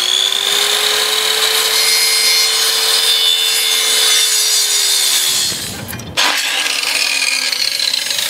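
Handheld electric circular saw with a blunt blade cutting across the end of a timber rubbing strake, its motor whining steadily for about five seconds. Near the end the whine falls in pitch as the saw is lifted clear and spins down.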